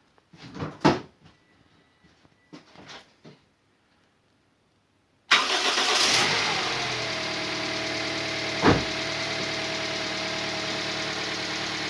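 A few light clicks, then the freshly rebuilt Toyota 2SZ 1.3 petrol engine starts abruptly about five seconds in and settles into a steady idle, running without its drive belts fitted, with one sharp knock a few seconds after it catches. It runs smoothly without the heavy knock of worn pistons, with only one hydraulic lifter tapping lightly until it bleeds.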